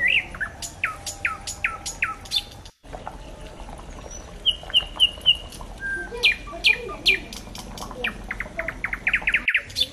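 Small birds chirping: a run of quick falling chirps, later a few short repeated notes, then a fast, speeding-up string of short calls near the end.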